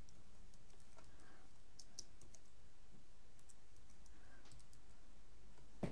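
Faint, scattered keystrokes on a computer keyboard as a word is typed, over a steady low hum, with a slightly louder click near the end.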